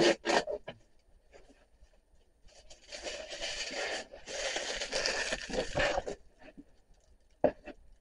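Scraping and rustling handling noises in two stretches of a second or two each, with a few sharp knocks near the start and one more near the end.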